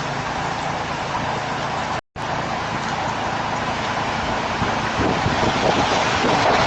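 Strong storm winds of a microburst blowing across a Ring camera's microphone, a steady rushing noise that grows louder and gustier about five seconds in. The audio drops out completely for a moment about two seconds in.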